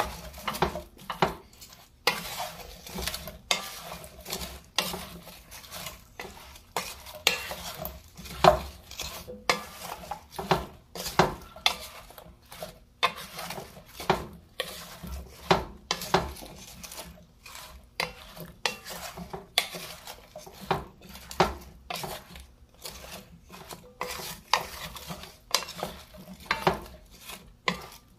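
A spoon stirring and tossing chopped seasoned vegetables (potatoes, zucchini, tomatoes, onion) in an enamelled cast-iron Dutch oven. Its repeated scrapes and knocks against the pot's sides and bottom come about once or twice a second, unevenly.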